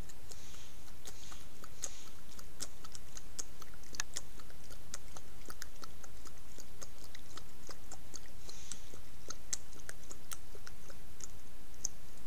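Mountain lion kitten lapping water from a small pool: a long run of quick, irregular wet clicks, a few each second, over a steady background hiss.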